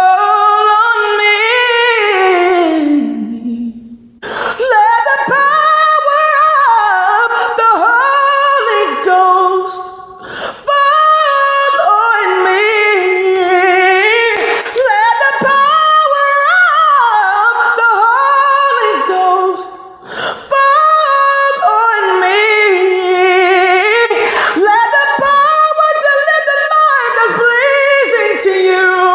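A woman singing a gospel worship song unaccompanied, in long held phrases with vibrato and sliding pitch, with short breaks for breath about three times.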